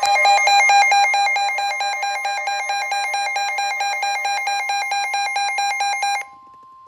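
Emergency Alert System alert tone: a loud electronic warble that switches rapidly between pitches. It cuts off abruptly about six seconds in, leaving a faint steady tone.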